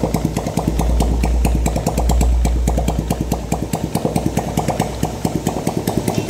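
2010 Yamaha Jupiter Z's single-cylinder four-stroke engine running with its clutch removed, raised to higher revs from about half a second in and dropping back toward idle near the four-second mark. It is being run to check whether the rough noise heard at every rev, worst at mid revs, comes from the clutch; the mechanic goes on to suspect a bearing inside the engine instead.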